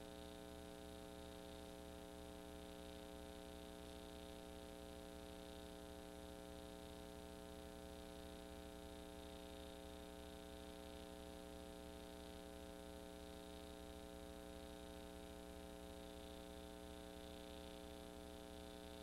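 Near silence: a faint, steady electrical hum with a light hiss, unchanging throughout.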